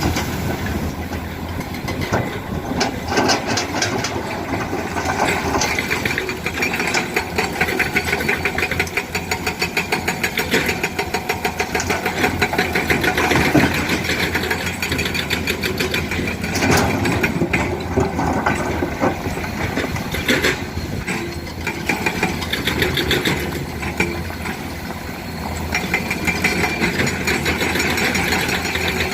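Komatsu PC200 excavator's diesel engine running, its note rising and falling with the working load. A few sharp knocks and clatters sound over it.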